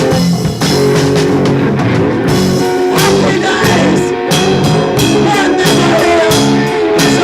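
Live three-piece rock band playing: electric guitar, bass and drum kit, with a steady drum beat.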